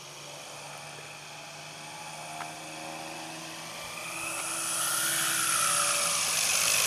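Motor and propeller of a radio-controlled model Demoiselle monoplane, a steady high-pitched whine. It grows steadily louder from about halfway through as the model flies in low and close.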